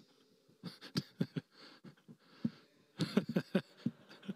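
A pause in a talk: room tone with scattered soft clicks and knocks, and a cluster of brief breathy voice sounds about three seconds in.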